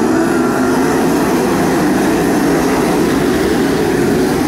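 A pack of World of Outlaws sprint cars' 410 cubic inch V8 engines running loud together as the field races past, many engine notes rising and falling over one another without a break.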